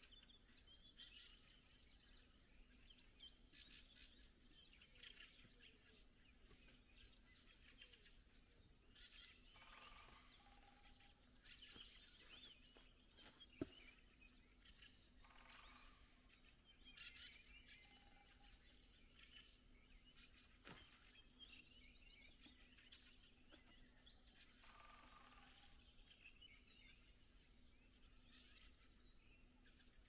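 Faint dawn chorus of several songbirds singing overlapping, chirping phrases throughout, with a single sharp click about halfway.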